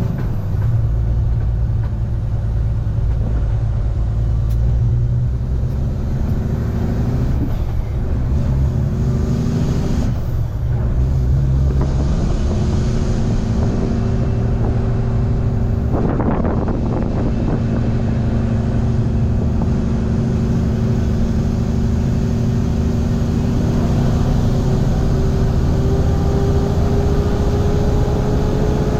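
Semi-truck diesel engine pulling a loaded refrigerated trailer, its note rising slowly as it accelerates, with brief breaks about 7, 10 and 16 seconds in as gears are changed.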